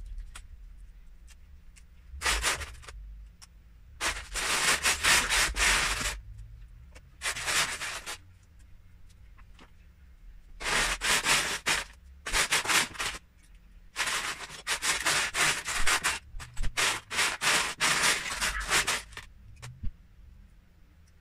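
Loose Lego bricks rattling and clattering in a plastic tub as a hand rummages through them, in several bursts of one to five seconds with short pauses between.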